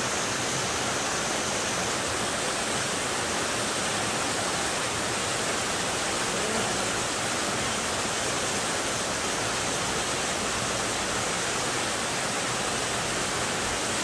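Small waterfall cascading over rock ledges into a pool, a steady rush of water running with a large flow.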